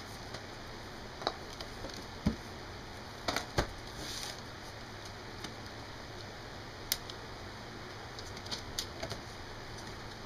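Plastic clicks and knocks from handling a Dell Latitude D620 laptop as it is turned upside down on a desk and its battery is unlatched and slid out. Separate sharp clicks are scattered throughout, with a few louder knocks in the first four seconds.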